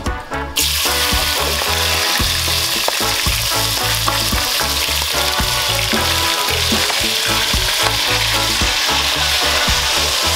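Chopped onion, sweet peppers and scallion sizzling steadily as they sauté in a hot pot, stirred with a wooden spoon; the sizzle starts suddenly about half a second in.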